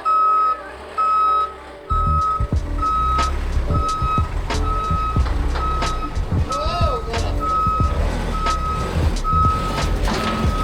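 A construction vehicle's reversing alarm beeps steadily, about three beeps every two seconds. An engine rumbles underneath, coming in about two seconds in, with scattered knocks.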